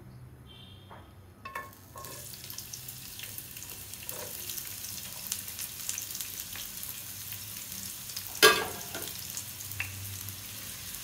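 Chopped onions hit hot oil in a nonstick frying pan and start to sizzle about two seconds in, a steady hiss with small crackles. A single sharp knock sounds about eight seconds in.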